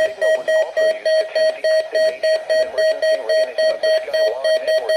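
Electronic alert beeper sounding a harsh, buzzy single-pitch tone in rapid, even beeps, about four a second: an alarm going off on emergency-alert receiving equipment at the end of a weather radio test message.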